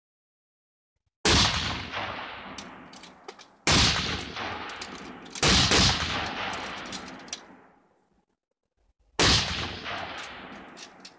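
Four rifle shots from a 300 m firing line, irregularly spaced, the first about a second in; each cracks loud and trails off in a long echo over two to three seconds, with a few faint clicks in between.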